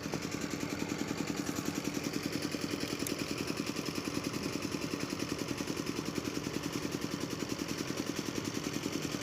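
A small engine idling steadily nearby, with a fast, even pulse and a low hum.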